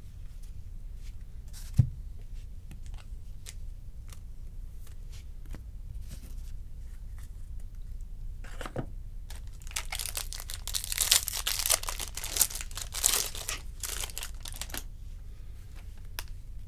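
Baseball cards being handled: soft clicks and slides of cards, with one sharp tap about two seconds in. About ten seconds in comes some five seconds of tearing and crinkling as a card pack wrapper is torn open.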